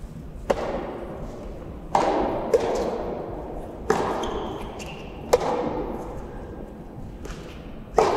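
Soft tennis rally: the rubber ball struck by rackets, five sharp hollow pops spaced one and a half to two and a half seconds apart, each trailed by the echo of a large indoor hall, with a fainter tap between the second and third.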